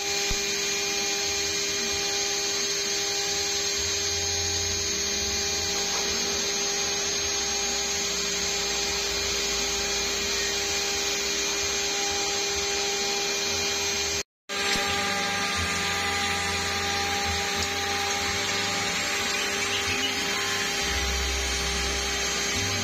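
CNC milling machine running, its spindle turning a small end mill that cuts an aluminium mold block flooded with cutting oil. It makes a steady machining noise with a few constant tones, broken by a momentary gap a little past halfway.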